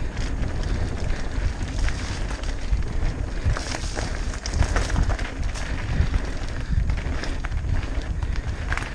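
Mountain bike ridden fast over a dirt singletrack: wind rushing over the microphone and tyre rumble, with frequent clicks and rattles from the bike over the bumps.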